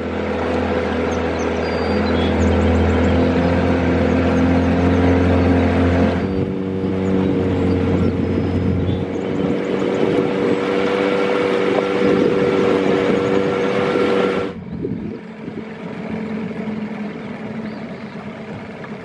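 A boat motor running steadily with a humming whine. Its pitch shifts about six seconds in, and it becomes quieter and weaker about two-thirds of the way through.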